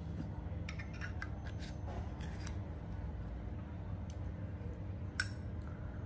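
Small metallic clicks and scrapes of a 1963 Zippo lighter being handled as its insert is slid back into the case: a run of light clicks from about one to two and a half seconds in, and one sharper click a little after five seconds.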